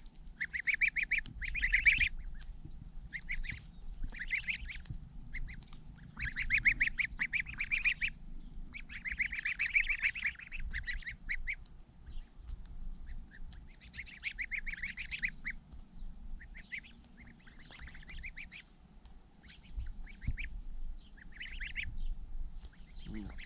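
Month-old domestic goslings peeping in short, quick trills while grazing, a burst every second or two.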